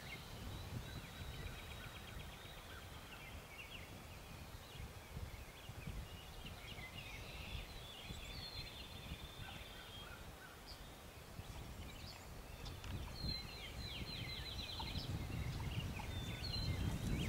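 Birds calling faintly, in repeated short chirps and trills, over a low rumble of wind on the microphone.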